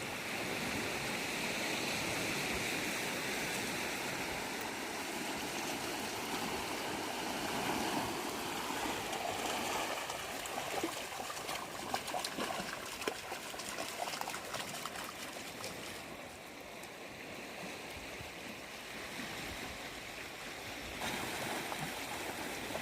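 Shallow sea water washing and trickling over the beach, a steady rushing, with a few small splashes in the middle.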